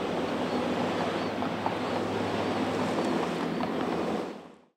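Roadside traffic noise with wind, a steady rush of passing cars, fading out near the end.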